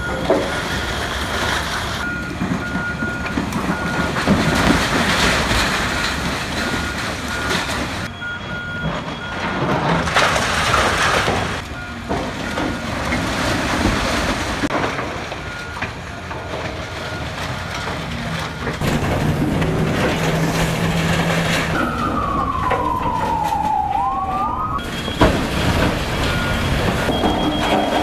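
Demolition noise from a John Deere hydraulic excavator tearing down a building: engine running with crashing, scraping debris. A steady beeping comes and goes, and late on a siren-like tone falls and then rises once.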